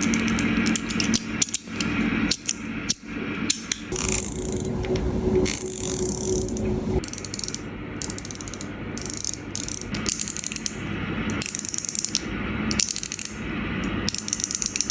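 Metal fidget toy worked by hand, clicking and ratcheting. Sharp separate clicks come in the first few seconds, then repeated runs of rapid fine ticking, each about a second long.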